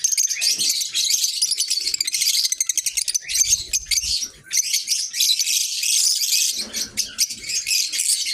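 A flock of caged lovebirds chattering, a dense, continuous mass of shrill overlapping chirps.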